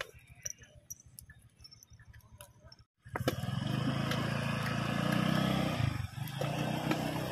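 Faint scattered clicks, then after a brief cut a motor vehicle passing close by on the road, its engine loud and steady for about three seconds before easing off.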